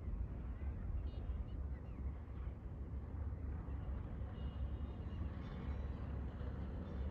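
Wind buffeting the microphone outdoors, a steady, uneven low rumble, with a few faint high chirps above it.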